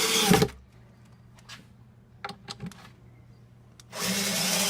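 Power drill driving wood screws through the box into a wooden pallet: one screw run ends about half a second in, a few light clicks follow, and the drill starts driving the next screw about four seconds in.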